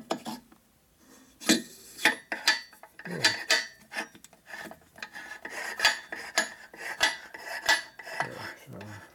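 Irregular metal clinks and scraping as a distributor is worked into its bore in a knucklehead engine case and turned, metal rubbing on metal against a compressed O-ring.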